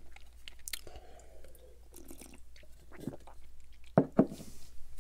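A person chewing and swallowing the last of a mouthful: soft wet mouth clicks and lip smacks, with two sharper clicks about four seconds in.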